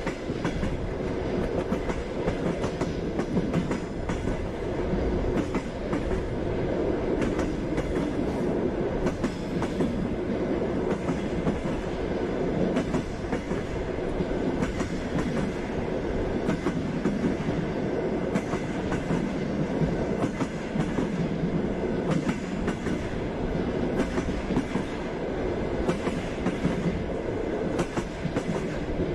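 Train running along the track: a steady rumble with the clickety-clack of the wheels over the rail joints.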